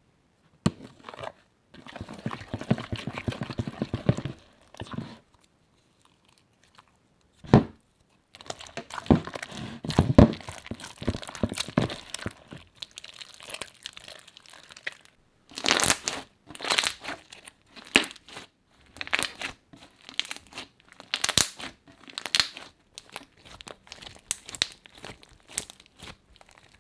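Crunchy slime being handled, crackling and crinkling in bursts with short pauses between them. Sharper, louder snaps come in the second half.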